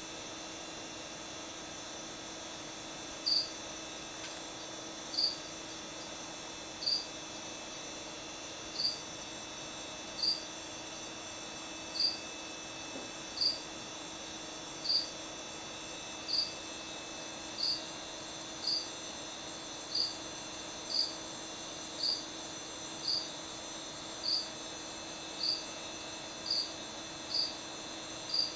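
A cricket chirping: single short, high chirps, at first about every two seconds and speeding up to about one a second.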